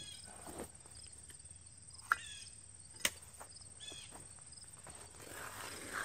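Outdoor insect drone: a steady high-pitched trill that does not change, with a few short chirps over it. Two sharp clicks, about two and three seconds in, are the loudest sounds.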